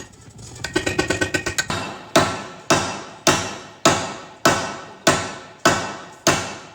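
Hammer blows on steel while working out a JCB boom's pin bushes: a quick run of light ringing knocks, then about nine heavy strikes at an even pace, roughly two a second, each with a metallic ring that fades.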